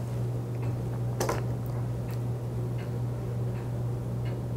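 A few faint clicks and light knocks over a steady low hum.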